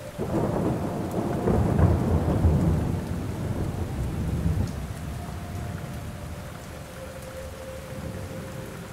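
Steady rain with a long roll of thunder that begins at once, peaks about two seconds in and dies away over the next few seconds, leaving the rain alone.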